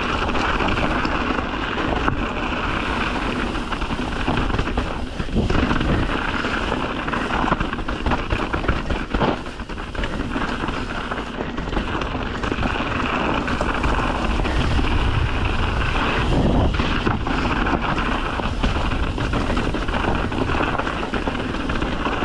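Mountain bike riding down a dirt forest trail: wind buffeting the camera microphone over steady tyre and trail noise, with a few knocks as the bike hits rocks and roots.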